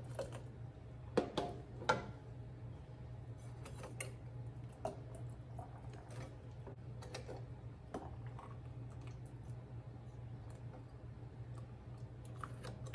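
A ladle clinking against a metal pot and glass canning jars while hot jelly is ladled into the jars: a few sharper knocks in the first two seconds, then scattered fainter clinks. A steady low hum runs underneath.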